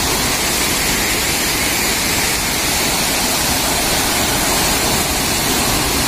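Steady rushing of a tall waterfall, some 40 to 50 metres high, pouring into its pool.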